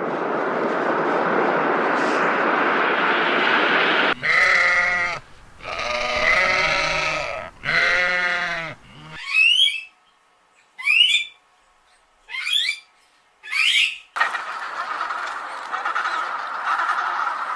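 Three long, wavering bleats, each about a second, come after a few seconds of steady rushing noise. Four short, sharp calls follow, each sweeping upward in pitch. The rushing noise returns near the end.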